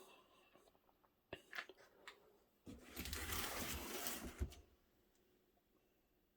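Cardboard box being handled: a few light knocks, then about two seconds of rubbing and rustling as it is turned over.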